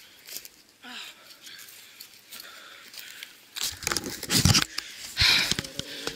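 Handling noise from a handheld camera being picked up and moved about: faint rustling at first, then loud rumbling thumps and scraping from a little past halfway.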